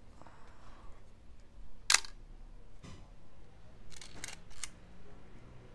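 A Canon FTb film SLR firing once at 1/500 s, a single sharp click from its cloth focal-plane shutter and mirror about two seconds in. About two seconds later comes a quick run of several lighter mechanical clicks from the camera body.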